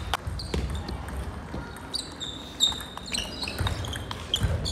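Table tennis rally: the ball clicking sharply off the paddles and the table in quick succession, each hit with a short high ring.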